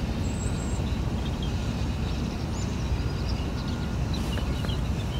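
Outdoor ambience: a steady low rumble with a few faint, brief bird chirps scattered through.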